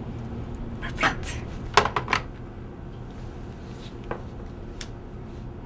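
Desk telephone handset being put down in its cradle: a few sharp clacks and knocks, over a steady low hum.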